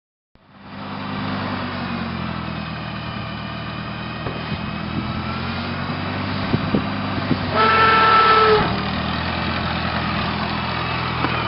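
An engine starts up and runs steadily, with a few light knocks. About eight seconds in, a pitched, horn-like tone sounds for about a second.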